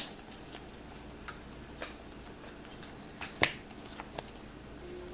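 Trading cards from a freshly opened pack being handled and flipped through: a few light, sharp snaps and clicks of card stock, the loudest about three and a half seconds in.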